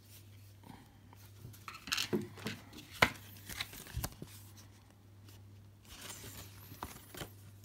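Paper and cardboard packaging being handled: scattered rustles and small knocks, with one sharp click about three seconds in.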